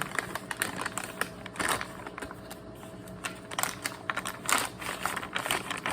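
Irregular clicks and crinkles of MRE packaging being handled as a warmed entrée pouch is pulled out of its heater bag.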